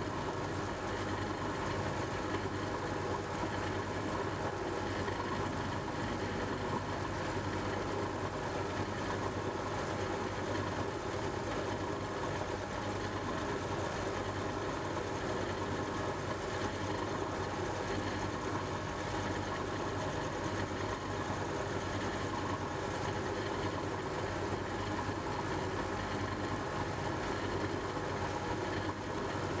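Milling machine running steadily as an end mill cuts across the top of a metal block: an even machine hum with a constant low tone, unchanging throughout.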